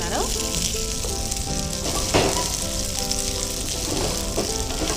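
Onions, bell peppers and green chillies sizzling in hot oil in a non-stick frying pan as they are stir-fried with a spatula, with a steady hiss and a couple of louder scrapes.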